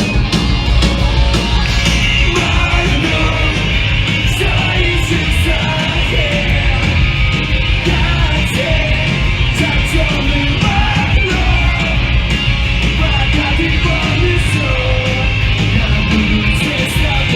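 Live emo/punk band playing at full volume: distorted guitars, bass and drums with yelled and sung vocals, recorded from the crowd.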